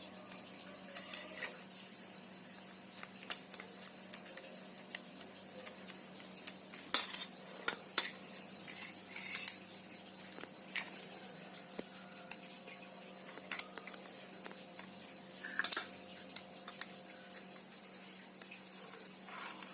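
Scattered light clicks and clinks of small metal and plastic parts being handled in an opened car seatbelt retractor, whose mechanism drags and makes the belt snag when pulled.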